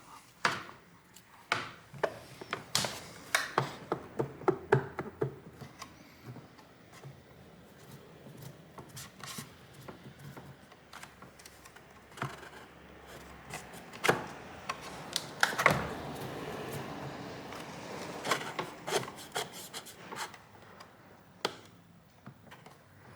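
Handling noises from taking apart a hoverboard's plastic shell: irregular clicks, knocks and scrapes of plastic and tools, with a longer rubbing sound about two-thirds of the way through.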